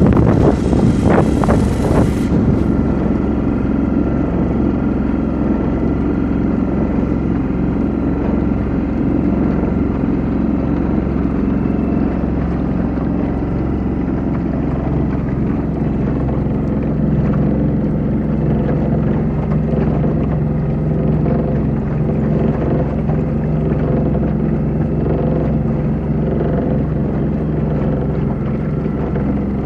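A small boat's outboard motor running steadily. Wind buffets the microphone for the first couple of seconds.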